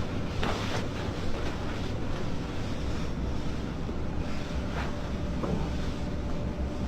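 Steady low hum and hiss of background noise, with a few faint soft knocks and rustles as a person shifts position on a treatment table.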